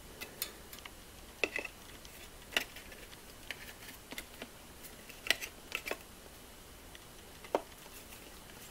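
Light, irregular plastic clicks and taps from handling a KAIWEETS HT118A multimeter's case and fitting its battery cover back over the AA batteries.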